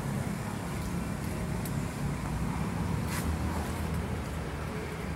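Steady low rumble of outdoor background noise, with a few brief clicks, the clearest about three seconds in.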